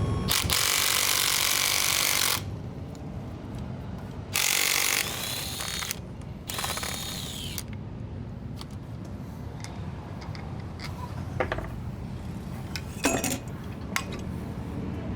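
Compressed-air shop tool run in four short bursts of loud hiss, the later two carrying a whine that rises and falls, used in stripping down a motorcycle fork leg. Later come a few light knocks and clicks of metal parts.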